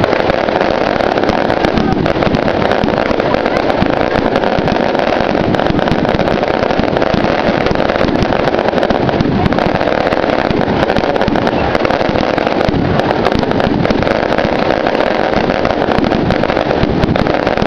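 A large bonfire burning with a steady rush and dense, continuous crackling.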